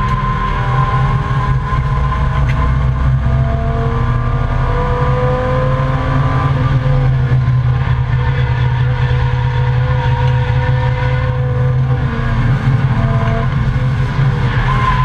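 Volvo 855 race car's five-cylinder engine running hard under race load from inside the cabin. The engine note climbs slowly through the middle and changes near the end.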